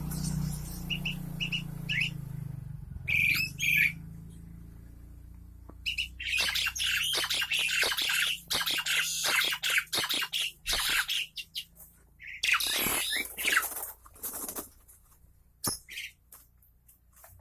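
Caged birds chirping in short high calls, then long spells of rapid wing flapping and scuffling as they mate in a breeding cage, with more chirps near the end.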